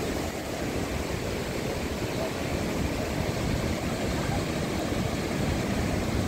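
Steady rushing noise of a brown, flood-swollen river pouring under a road bridge.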